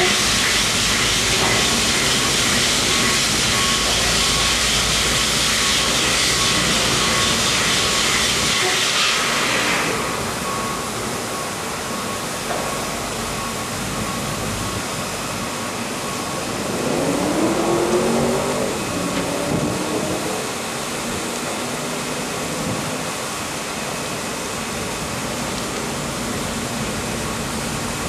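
A shopping-basket washing machine running with a loud hiss that cuts off about ten seconds in, leaving a quieter steady running noise. A short rising whine comes a few seconds later.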